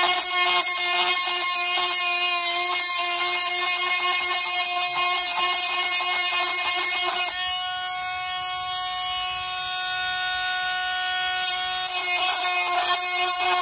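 Handheld rotary tool running with a steady whine while its small bit grinds across a motherboard trace, cutting the connection to the Dallas real-time clock's original battery. Its tone shifts about seven seconds in.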